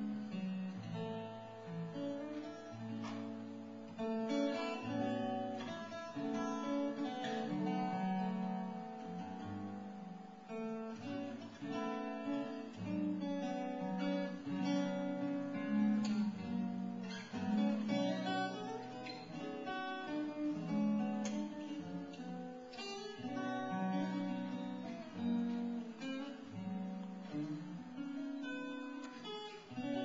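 Ryan Nightingale steel-string acoustic guitar played solo and fingerpicked, a melody over bass notes, with no singing.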